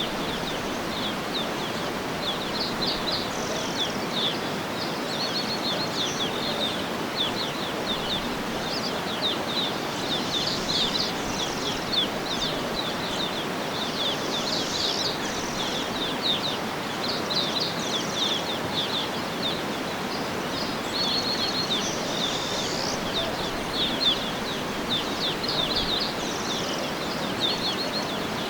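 Songbirds chirping and trilling, in rapid short notes repeated throughout, over a steady rushing background of natural noise.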